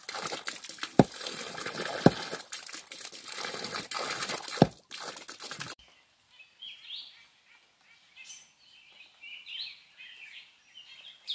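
A large knife chopping leafy green plants on a log: crunching and rustling with three sharp chops. It cuts off suddenly about six seconds in, giving way to forest birds chirping and calling.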